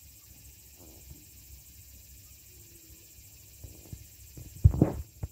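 Faint steady outdoor background hiss, then from about four seconds in a cluster of close, sharp knocks and rustles from the handheld camera being moved.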